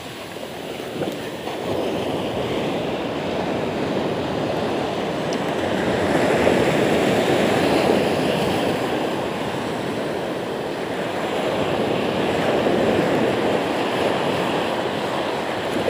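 Sea surf breaking and washing up the shore, a steady rush that swells louder twice.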